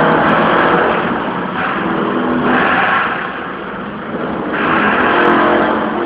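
Car sound system turned up very loud, playing bass-heavy rap, heavily distorted and clipped in the recording.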